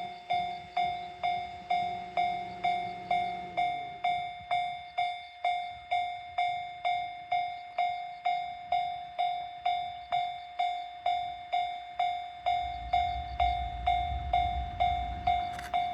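Level-crossing warning bell ringing steadily, about two and a half strikes a second. A low hum drops in pitch and fades about four seconds in. From about twelve seconds the rumble of an approaching E217 series electric train builds under the bell, and the train reaches the crossing at the very end.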